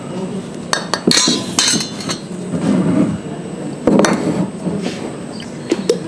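Clinks and knocks of dishes and metal utensils being handled, with a short hissing rattle about a second in.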